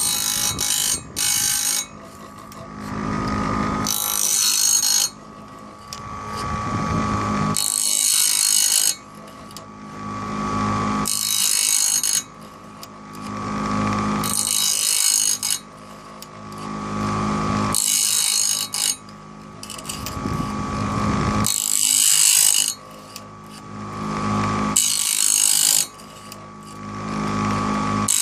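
Motor-driven grinding wheel of a homemade bandsaw blade sharpener running with a steady hum and grinding the blade's teeth one after another. A loud, hissy grind swells and cuts off suddenly about every three and a half seconds, one tooth at a time, about eight times.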